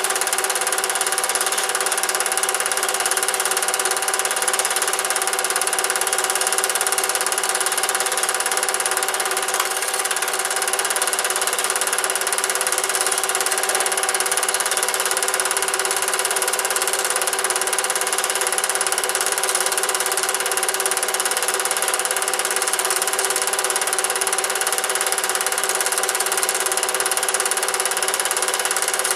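Cine film projector running: a steady mechanical whirr with several constant tones, including a high whine, unchanging throughout.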